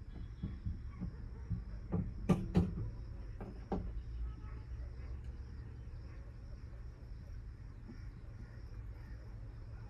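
A few sharp knocks, the loudest two close together, between about two and four seconds in, over a steady low hum and a steady high insect drone.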